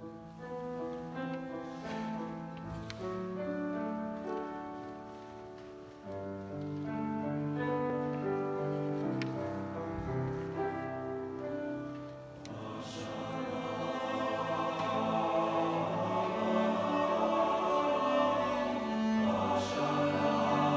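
Piano, cello, violin and clarinet play a lilting instrumental introduction. About halfway through, a male choir of boys and young men comes in singing, and the music grows fuller and louder.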